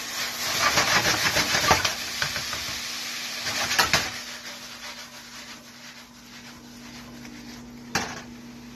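Sliced chicken sizzling and crackling in hot oil in a frying pan, busiest in the first few seconds and then settling to a quieter steady sizzle. A single sharp knock near the end.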